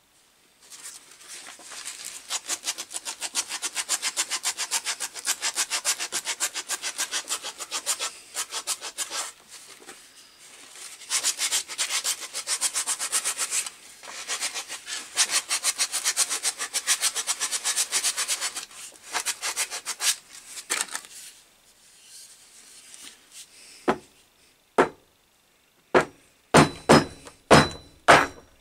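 Hickory axe handle being abraded by hand with quick back-and-forth strokes in three spells with short pauses, shaping its top end to fit the axe head's eye. Near the end, a few separate sharp wooden knocks as the head is knocked onto the handle.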